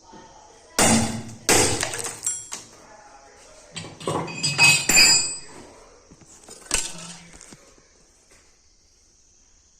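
Hard objects clinking and clattering, about half a dozen knocks over the first seven seconds, some ringing like metal or glass, with a faint steady high-pitched hiss throughout.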